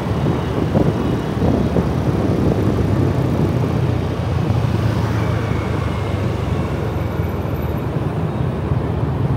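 Riding a motorbike at speed: steady wind rush on a chest-mounted microphone over the bike's steady engine hum and the traffic around it.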